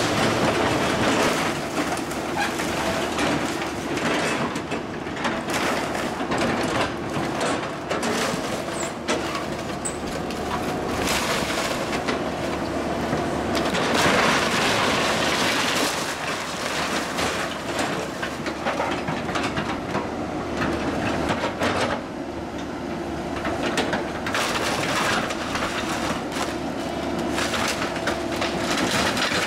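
Hydraulic Hyundai crawler excavator running steadily while its bucket tears into a wood-frame house, with continual cracking, splintering and crunching of lumber and siding over the engine.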